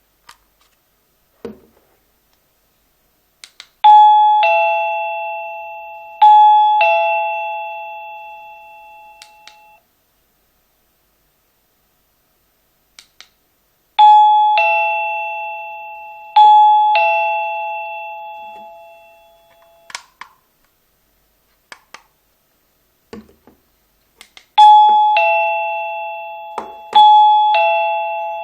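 SilverCrest wireless doorbell chiming a two-note ding-dong, high then low, played twice over with each note ringing on and fading. It is rung three times, about ten seconds apart, with faint clicks just before each ring.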